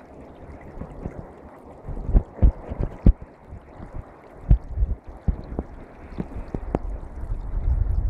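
Spring meltwater brook running through a channel in snow and ice, a steady rushing gurgle with sharp pops of water now and then.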